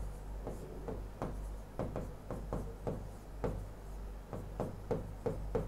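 Stylus tapping and scratching on the glass of an interactive touchscreen board while writing: irregular light clicks, about three a second, over a faint steady low hum.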